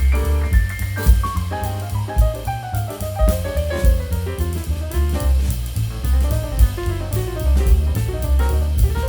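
Background music: an upbeat jazzy instrumental with a drum kit, a heavy bass line, and descending melodic runs.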